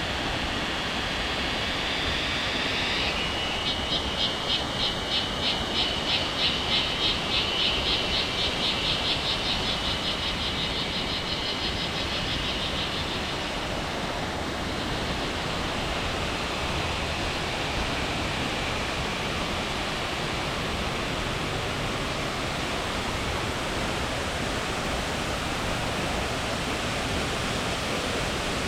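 Steady rush of water in tropical rainforest. A high, shrill animal call rises over it a few seconds in as fast, even pulses, several a second. It is loudest near the middle and fades out about halfway through.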